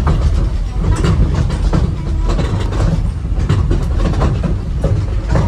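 Park toy train running along its track: a steady low rumble with frequent irregular clicks and clacks from the wheels and cars.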